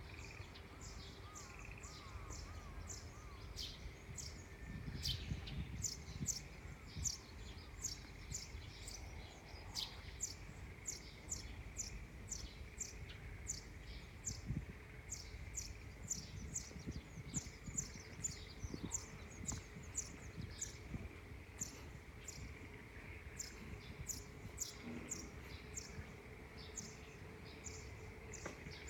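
Songbirds chirping: a steady run of short, high, falling chirps, about two a second, over a low background rumble.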